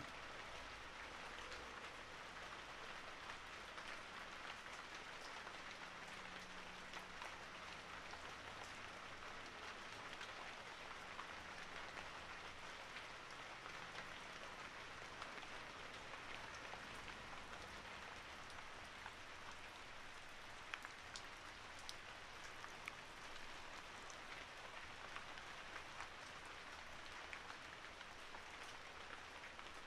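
Continuous gentle rain: a faint, steady hiss with scattered drop ticks.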